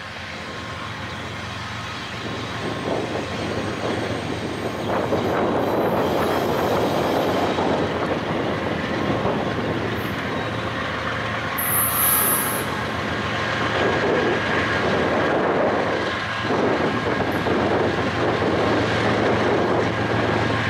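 Diesel freight locomotive approaching slowly at the head of a freight train, its engine running and wheels rolling over the rails, growing louder about five seconds in. Faint wheel squeal and a brief high-pitched hiss about halfway through.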